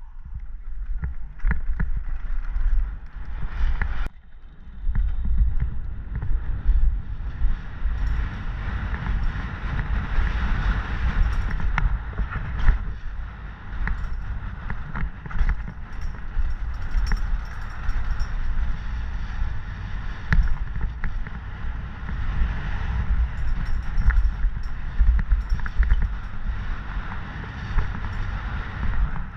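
Wind buffeting the microphone of a mountain bike descending a dirt trail at speed, with steady tyre noise on the dirt and frequent sharp rattles and knocks from the bike over bumps.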